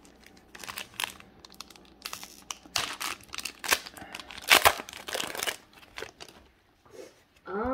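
Wrapper of an Upper Deck Series Two hockey card pack torn open and handled as the cards are pulled out: a run of sharp, irregular crackles, loudest about four and a half seconds in.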